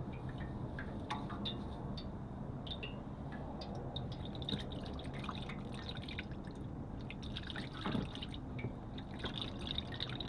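Automatic transmission fluid draining out of an Allison 1000 transmission pan into a catch container, a steady run of fluid with many irregular drips and small splashes, one slightly louder splash about eight seconds in.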